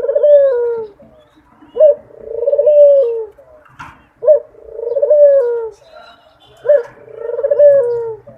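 A dove cooing in a repeated call. Each call is a short, sharp rising note followed by a longer rolling coo that falls in pitch, about every two and a half seconds.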